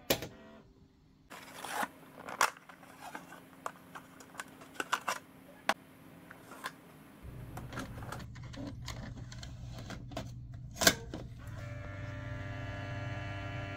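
Kodak Kodavision Series 2000 cradle being loaded with an 8mm videocassette: an eject-button click, then plastic clicks and clatter of the cassette and compartment, a low machine hum starting about seven seconds in, and a loud clack about eleven seconds in as the cassette door shuts. A steady tone with several pitches starts near the end.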